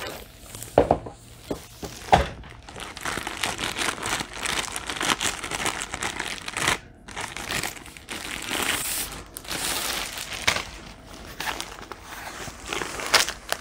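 Plastic wrapping crinkling and rustling as a rolled canvas is slid out of its long cardboard box and unwrapped by hand, with scattered sharper crackles.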